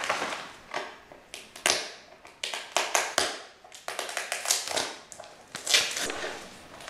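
Gift tissue paper and wrapping crinkling and rustling in quick, irregular crackles as a present is unwrapped and a small box is handled.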